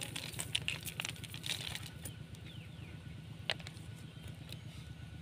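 Snail shells clicking and clattering against one another and the cast net's chain weights clinking as the catch is shaken out of the net onto the ground. A quick run of clicks in the first two seconds, then only a few single clicks.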